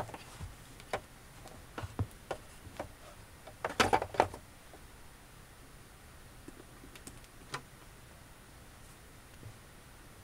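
Scattered clicks and knocks from handling the hammer drill and plugging in its power cord. The loudest knocks come in a short cluster about four seconds in, with a few faint ticks after; the drill is not running.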